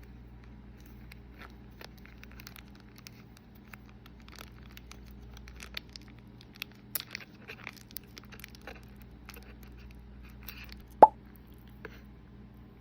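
Small handling noises while preparing food: scattered light clicks, taps and crinkles, with one sharp click about eleven seconds in, over a steady low hum.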